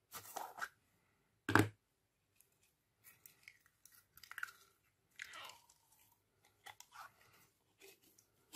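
Clear plastic slime jar being handled and opened, with irregular clicks and crackles of the plastic container and of the slime inside as it is worked loose. The loudest is a sharp snap about one and a half seconds in.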